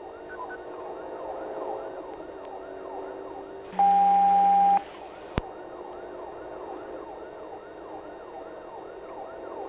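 Police car siren in a fast yelp, rising and falling about twice a second, heard through police radio. About four seconds in, a loud steady beep tone lasting about a second sounds over it, followed by a short click.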